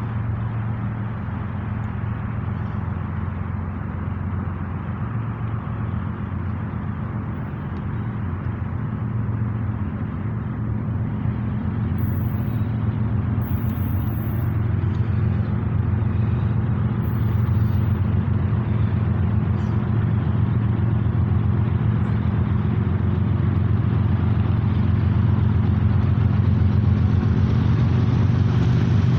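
Diesel engines of a BNSF freight train's GE locomotives running with a steady low drone that grows steadily louder as the train approaches.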